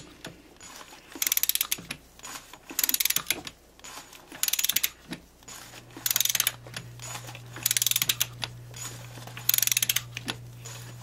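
Ratchet of a hand torque wrench clicking in quick runs on back-swings, about every second and a half, as small socket-cap bolts on a motorcycle oil cooler are snugged down to a low torque setting. A steady low hum comes in about halfway through.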